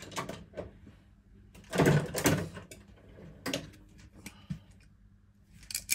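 Workshop handling noise as tools are fetched: a few scrapes and knocks, the loudest about two seconds in and another near three and a half seconds, with small clicks between.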